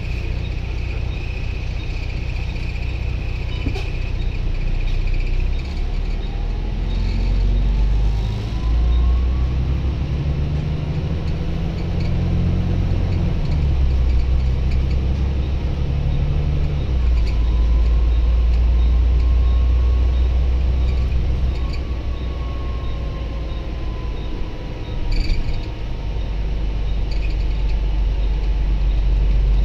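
Volvo B9TL double-decker bus's Euro 3 straight-six diesel heard from inside the passenger cabin while driving, its low drone rising and falling in pitch as the bus accelerates and changes gear, with a faint whine gliding up and down. A short sharp hiss comes about 25 seconds in.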